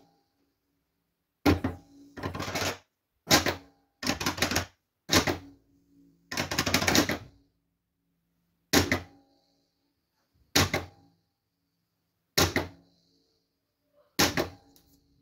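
Scale pinball drop-target bank: a 3D-printed target knocked down by a finger and the reset solenoid snapping it back up, repeated about ten times as sharp clacks a second or two apart. A few of the strokes are drawn out to half a second or a second.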